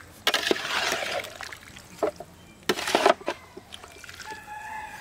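Spatula stirring and tossing masala-coated boiled water caltrops in a large aluminium pan: a wet, scraping, rustling mix, with a few sharp knocks of the spatula against the pan around two and three seconds in.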